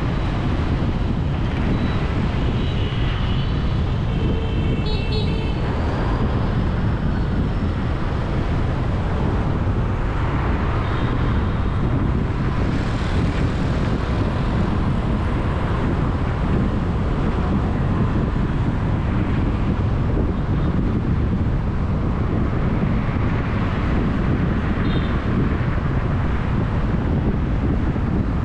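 Steady rumble of busy road traffic heard while moving through it, with vehicle horns beeping several times in short bursts a few seconds in and once more near the end.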